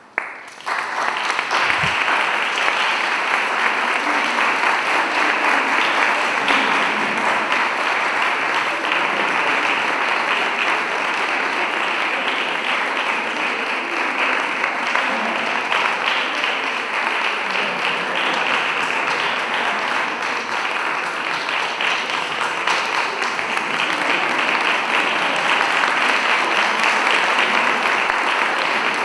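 Audience applauding, starting about half a second in and keeping up steadily.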